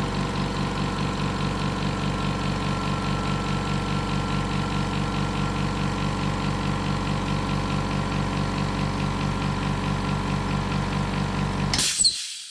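Hyundai HY5508 oil-free air compressor running steadily with a fast, even pulsing as it fills its tank. Near the end it cuts out with a brief hiss as the tank reaches full pressure.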